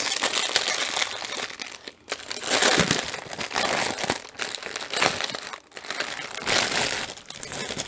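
Small clear plastic bags of diamond-painting drills crinkling as hands shuffle and sort them, in an uneven run of rustles that swell and fade.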